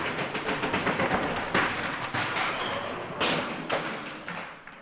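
AI-generated sound effect of a man tumbling down stairs while marbles clatter: a dense run of thuds and many small clicking impacts that tapers off near the end. It sounds like he got flung down the stairs.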